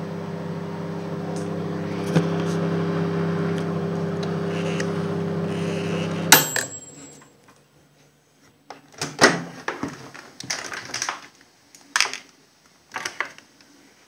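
Microwave oven running with a steady electrical hum while heating a bag of popcorn. About six seconds in, a sharp click cuts the hum off as the oven stops. Scattered clicks and knocks follow as the door is opened.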